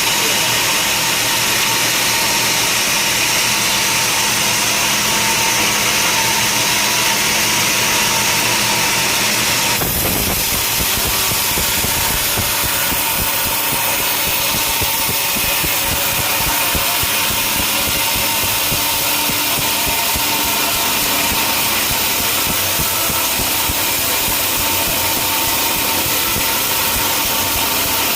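Sawmill machinery running steadily with a constant whine. About ten seconds in the sound changes abruptly and a deeper rumble is added.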